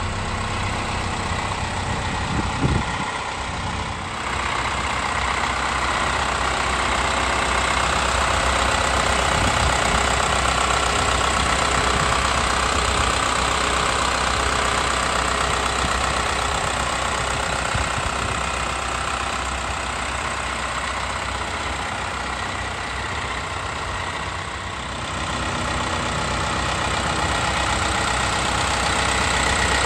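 Isuzu 4HK1-TC four-cylinder turbo diesel idling steadily, heard close at the open engine bay; it grows louder about four seconds in. A brief knock sounds about three seconds in.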